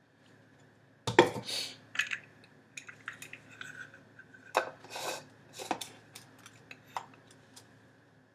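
Knocks and clinks of a blender jar and a drinking tumbler being handled while the tumbler's straw and lid are fitted. The loudest knock comes about a second in, with more knocks and clatters scattered after it.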